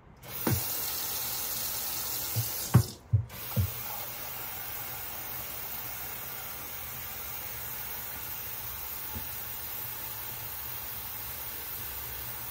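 Tap water running from a sink faucet into a plastic container held under it, a steady rushing hiss. Several dull knocks in the first few seconds as the container bumps against the sink, and the flow cuts out briefly about three seconds in before running on.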